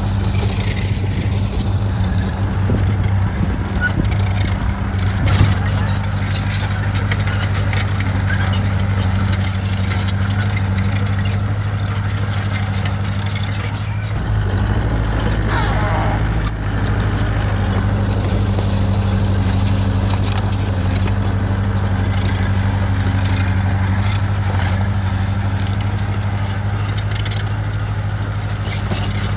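Bulldozer's diesel engine running steadily under work, with repeated metallic clanks and rattles over it.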